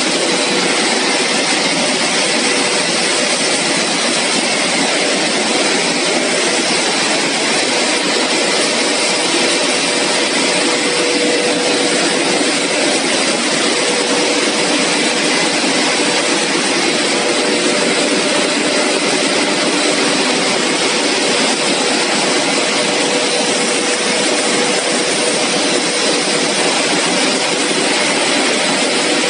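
CPP three-layer co-extrusion cast film line running: a loud, steady rushing roar from its blowers and electric motors, with a constant humming tone. The noise does not change throughout.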